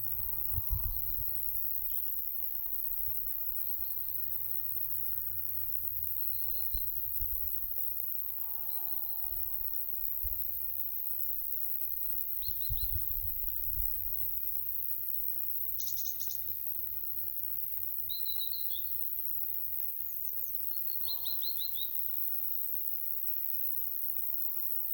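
Summer wind gusting on the microphone with a low rumble, with scattered short songbird chirps and quick trilled phrases from nearby bushes over a steady high hiss of insects.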